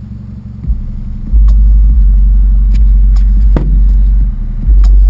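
Rockford Fosgate T1 12-inch subwoofers in a sealed box, heard inside the car, pounding out deep hip-hop bass. The bass comes in hard about a second in, drops out briefly near four seconds, then returns, with a few sharp clicks over the top.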